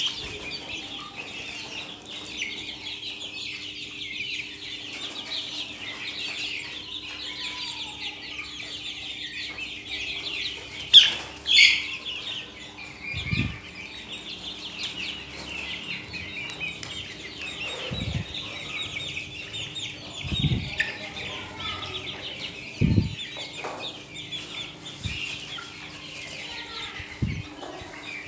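Flock of young Australorp chickens clucking and calling, a dense chatter of many short, high calls, with one louder call about eleven seconds in. A few short low thumps sound at intervals.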